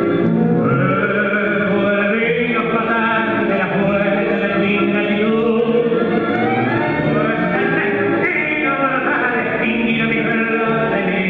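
Tango song: a singer's voice carrying the melody over the band's accompaniment, playing steadily.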